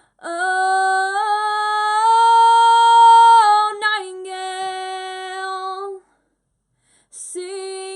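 A woman singing unaccompanied: a long held note on "Oh" that steps up in pitch, then a lower phrase on "nightingale", then a short break of about a second before the voice comes back near the end.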